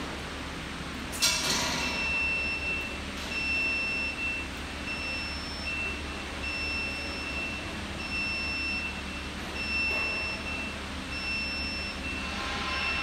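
Celette Rhone XL scissor-lift chassis bench lowering: a sharp burst of noise about a second in, then an intermittent high-pitched warning beep that sounds on and off while the bench descends, over a low steady hum.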